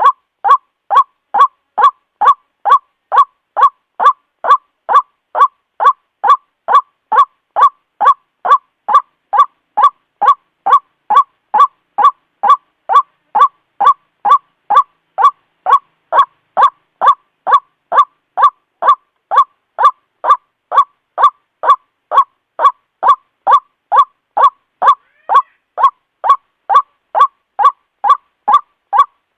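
White-breasted waterhen giving its ruak-ruak call over and over, short loud notes evenly spaced at just under two a second, with no change in pace.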